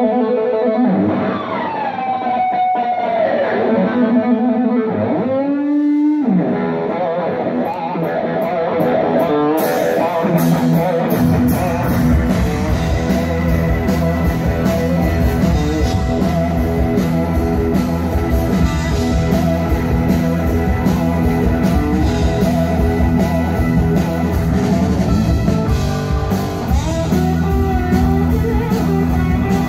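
Live rock band heard from the crowd. An electric guitar plays alone with sliding, bending notes, then drums come in about nine seconds in and bass joins a couple of seconds later, the full band playing on.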